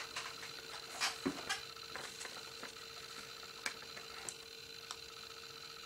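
Scattered light clicks and taps of craft items and scissors being handled on a tabletop, the sharpest about a second in, over a faint steady hum.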